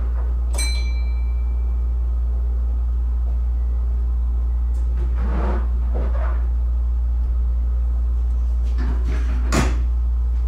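Steady low hum inside a train's driving cab. About half a second in comes a click with a short ringing ding, later a couple of brief rustles, and a knock near the end.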